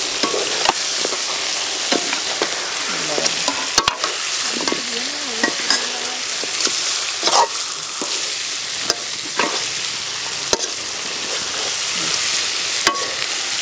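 Whole climbing perch fish frying in spice paste in a metal karai, sizzling steadily. A metal spatula scrapes and clicks against the pan as the fish are stirred and turned.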